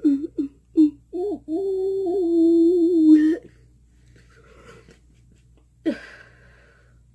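A girl's voice making wordless sounds: a few short yelps, then one long held note for about two seconds. A brief cry follows near the end.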